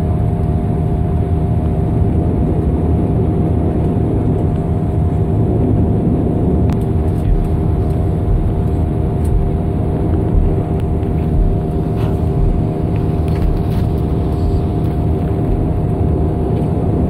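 Turboprop airliner's engines and propellers running steadily, heard from inside the passenger cabin while the aircraft rolls on the ground after landing: a loud, even drone with several steady tones over a low rumble.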